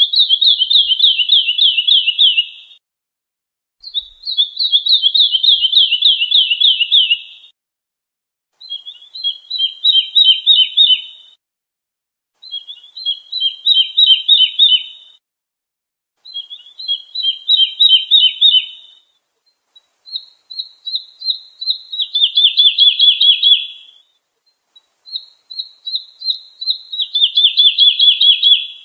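A lark singing in repeated phrases, each a fast trill of high notes falling slightly in pitch and lasting two to four seconds, with short pauses of about a second between them; about seven phrases.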